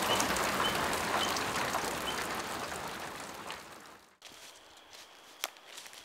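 Heavy rain falling through the forest, a dense steady hiss that fades out over about four seconds, with a few short bird chirps above it. It then cuts to quieter woodland ambience with a faint high insect-like tone and a few soft ticks.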